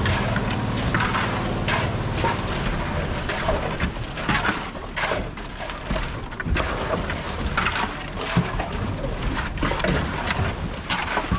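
Construction-site work during a concrete pour of building columns: irregular knocks, clatter and scrapes over a rough rushing noise.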